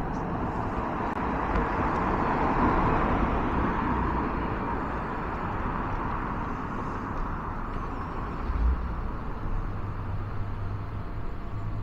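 Town-centre road traffic: the noise of a passing vehicle swells a couple of seconds in and eases away, over a low rumble. A single low thump comes about three-quarters of the way through.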